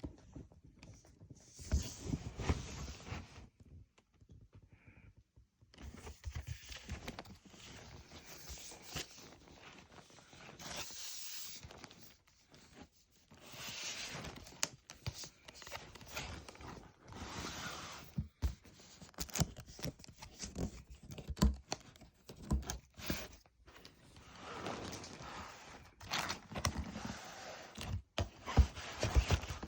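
Shoe-box packaging and tissue paper being handled: repeated rustling and crinkling lasting a second or two at a time, with scattered taps and knocks, and a brief lull a few seconds in.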